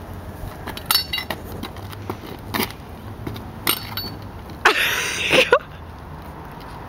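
Scattered metallic clinks and knocks as a rusted-on car wheel is tugged and rocked by hand on its hub, a few with a brief high ring, then a louder, noisier burst about a second long near five seconds in.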